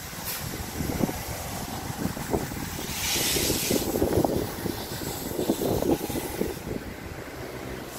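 Steam locomotive moving slowly through the station yard, with irregular low rumbles and clanks and a burst of steam hiss about three seconds in.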